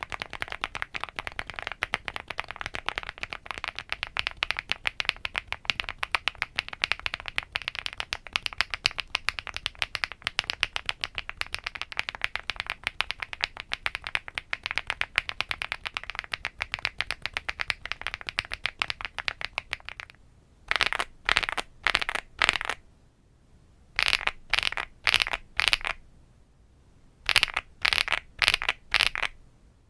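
Wob Rainy75 mechanical keyboard being typed on fast, a dense, continuous run of key clacks as it is tried with different switches (JWK Vertex V1, HMX Cheese, HMX Pado V2). About 20 s in the typing changes to short bursts of keystrokes with pauses between, the eight keys 'asdf jkl;' struck in quick runs on the FR4 plate.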